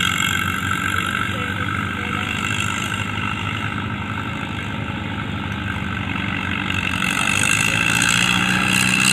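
Antique tractor engine running steadily, growing somewhat louder near the end, with faint voices mixed in.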